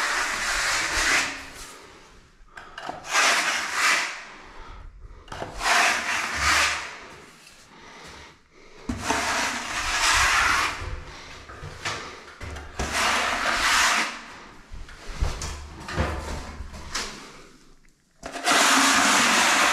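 Wide skimming blade scraping across a wall thinly coated with wet gypsum finishing plaster, in about seven long strokes a couple of seconds apart. The coat is thin, so the blade rasps over the wall with little plaster to collect.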